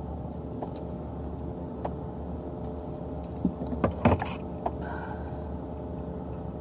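A few light clicks, then a brief cluster of knocks and rattles about four seconds in, over a steady low rumble: gear being handled aboard a fishing kayak.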